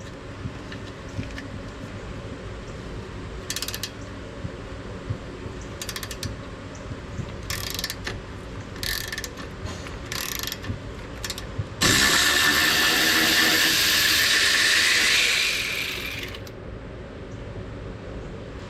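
Short bursts of a hand ratchet clicking, several times. About twelve seconds in, a loud hiss starts suddenly, lasts about four seconds and then fades.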